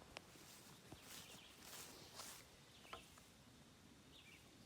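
Near silence: faint outdoor ambience with a few faint, sharp taps.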